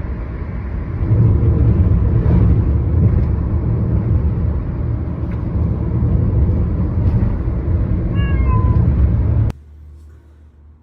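A loud, steady low rumble that cuts off suddenly near the end, with one short pitched cry from a pet about eight seconds in, rising then falling.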